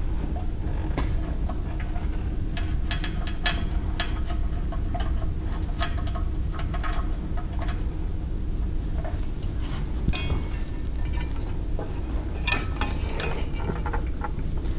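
Scattered metallic clicks and clinks of a wrench on the grinder's mounting bolts as they are undone, some in quick runs of several clicks, over a steady low hum.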